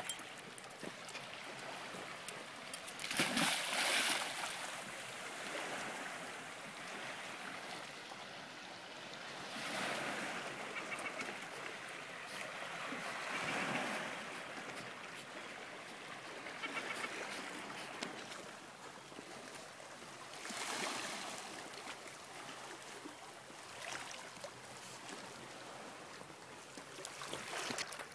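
Sea water sloshing and lapping around a golden retriever swimming beside a concrete pier, with a louder splash about three seconds in and several softer swells of water noise after.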